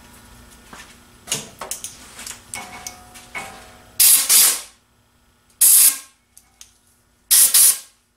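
A few light metallic clicks and rattles, then three short blasts of compressed air, clearing titanium chips out of freshly cut internal threads in the tube.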